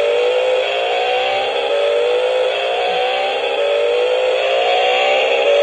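Electronic engine-revving sound effect from a toy RC sports car's built-in speaker, set off by a button on its remote. A steady engine note climbs slowly in pitch, drops back and climbs again, three times over.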